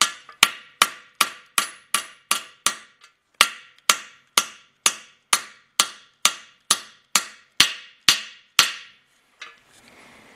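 Hammer blows on a steel seat driver, knocking a freezer-chilled valve seat insert into its press-fit counterbore in a Willys F-head engine block. A steady run of sharp metallic strikes at about two and a half a second, each ringing briefly, stops a little before the end once the seat is in.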